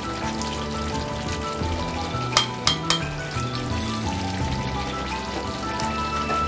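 Chicken curry sizzling in a metal karahi as a spatula stirs it, with three sharp clicks of the spatula against the pan a little over two seconds in.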